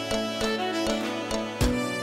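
Instrumental background music, a melody on plucked and bowed strings, with a deep drum beat coming in near the end.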